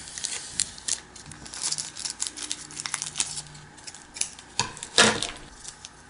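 Plastic wrapper of a trading-card booster pack crinkling and crackling in the hands as the cards are worked out of it, with a louder crackle about five seconds in.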